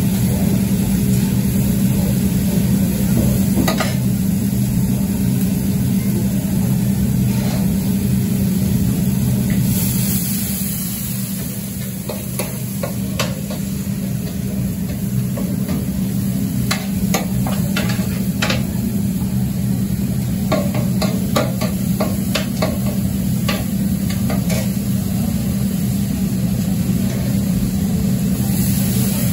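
Oil and chopped meat sizzling on a wide tantuni pan, with a run of sharp clicks and taps from a metal spoon or spatula against the pan about halfway through, over a steady low hum.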